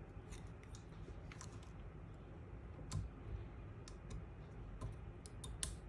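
Irregular small clicks and ticks of a tool working at a Browning X-Bolt rifle's trigger assembly while trying to get at the trigger spring, with one slightly louder click about three seconds in.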